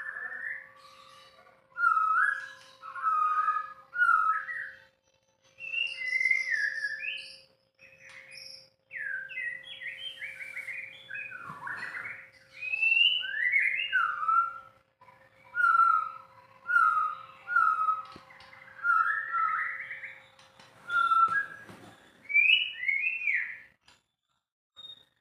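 White-rumped shama (murai batu) singing: a run of varied clear whistled phrases, some built from repeated short notes and others from quick rising and falling sweeps, with short pauses between phrases and a brief silence near the end.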